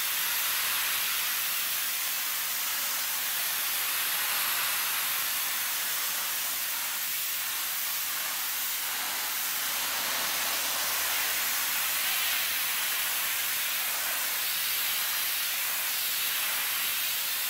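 Pressure-washer wand with a green 25-degree nozzle blasting a steady jet of water onto muddy concrete, a continuous hiss of spray striking the surface as the mud is stripped off.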